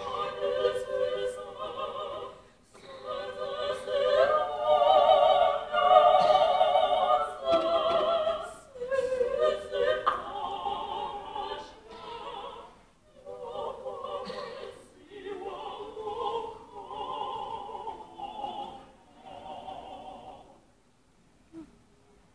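Mixed choir of women's and men's voices singing sustained chords with vibrato, in phrases with short breaks between them. It is loudest in the first third and softer afterwards, and the singing stops shortly before the end.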